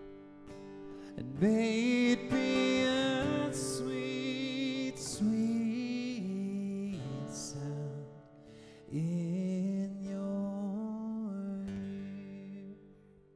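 Worship band music: a voice sings long, wavering held notes in two phrases over sustained chords, the sound dying down near the end.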